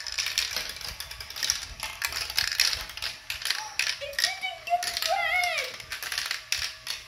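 Marble run's plastic chain elevator clicking and clattering as it carries glass marbles up, with marbles clacking and rolling on the plastic tracks: a rapid, irregular run of small hard clicks.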